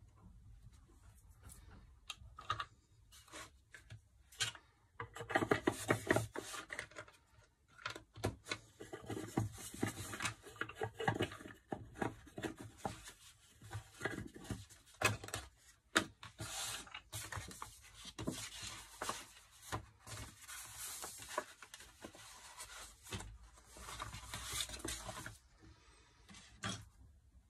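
Paper rustling and scraping as a concertina sketchbook is handled and unfolded across a tabletop, mixed with light clicks and knocks as a wooden stamp box is picked up and moved.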